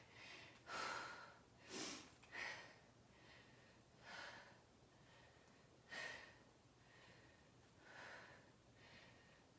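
A woman breathing hard while holding a forearm plank: faint, irregular breaths in and out, one every second or two, from the strain of the hold.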